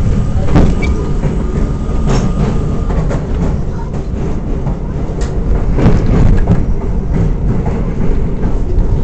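R42 subway car running along the track: a loud, steady rumble of steel wheels on rail, with irregular clacks as the wheels pass over rail joints. A thin steady whine fades out about three seconds in.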